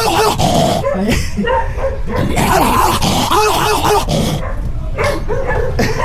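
A dog vocalizing: bunches of short calls, each rising and falling in pitch, with brief pauses between the bunches.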